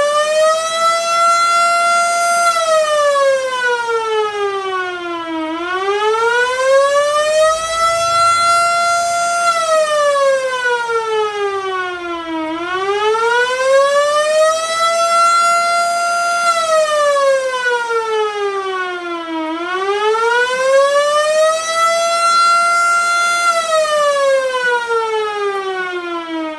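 LK-SV-2 emergency-vehicle siren sounding a slow, repeating wail. The pitch climbs for about three seconds, holds for a moment at the top, then falls for about three seconds, cycling roughly every seven seconds, about four times in all.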